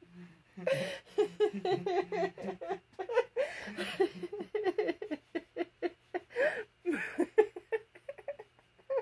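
A woman in a long fit of hard laughter, coming in repeated short bursts with breaths between them.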